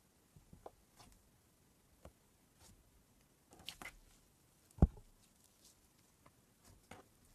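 Soft glitter slime being pressed and folded by hand, giving faint sticky squishes and small clicks, with one louder low pop a little under five seconds in.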